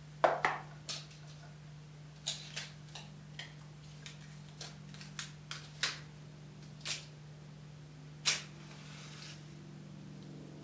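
Scattered sharp clicks and small taps from handling a cigarette pack and a long 120 cigarette, over a steady low hum. The loudest click comes about eight seconds in and is trailed by about a second of hiss.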